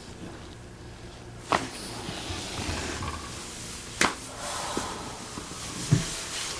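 Two sharp joint cracks, about a second and a half and four seconds in, during a chiropractic adjustment, then a dull thump near the end, over soft rustling.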